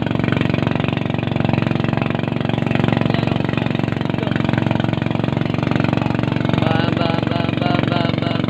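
A small engine running steadily at an even speed, with a rapid, regular pulsing and no change in pace.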